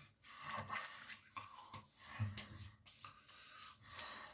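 Faint rubbing and patting of hands spreading aftershave over freshly shaved skin: a string of soft strokes with a couple of sharper pats past the middle.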